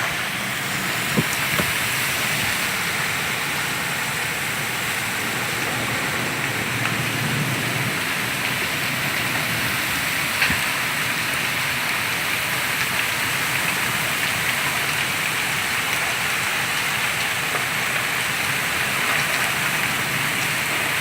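A steady, loud rush of storm water and wind, with a few sharp knocks near the start and one about ten seconds in.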